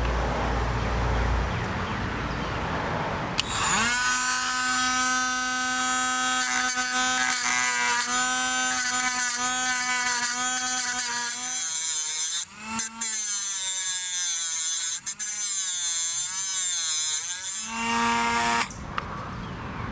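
Dremel rotary tool with a metal cutting wheel grinding the head off a steel rivet on a motorcycle drive chain. A high whine with a grinding hiss starts about three and a half seconds in, and its pitch wavers as the wheel bites. It breaks off briefly twice, then stops, with one short spin-up near the end.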